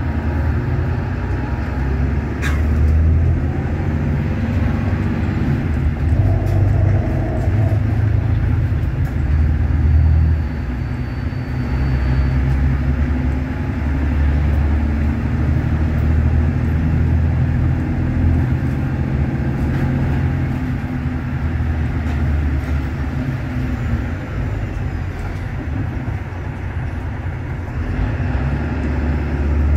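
Mercedes-Benz OM936LA six-cylinder diesel of an O500U city bus with a Voith DIWA.6 automatic gearbox, heard from inside the passenger cabin while the bus drives: a steady low engine drone that swells and eases several times. A single sharp click sounds about two and a half seconds in.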